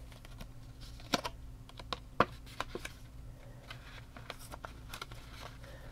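Paper banknotes and cash envelopes being handled on a table: irregular light clicks and rustles, with two sharper snaps about a second and two seconds in.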